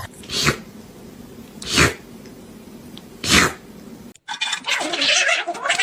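Cat screaming: three short, harsh, raspy shrieks about a second and a half apart, then a longer harsh scream near the end.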